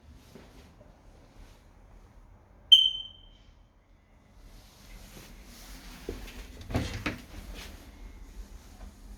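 A single short, high-pitched electronic beep about three seconds in, fading within half a second. Later come soft knocks and a few thumps, like doors or cupboards being opened and closed.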